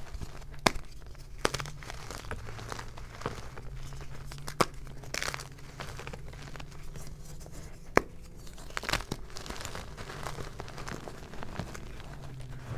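Hard blocks of Xtraining gym chalk being crushed and crumbled by hand, a steady crunchy crumbling with several sharp snaps as chunks break off.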